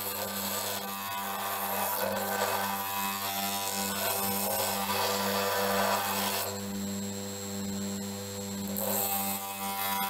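Bench grinder motor running with a sanding drum on its spindle, humming steadily, while a stainless-steel kunai blade is pressed against the spinning abrasive drum. The sanding gives a harsh rasping hiss from about half a second in to about six seconds, then stops, and starts again near the end as the blade is put back to the drum.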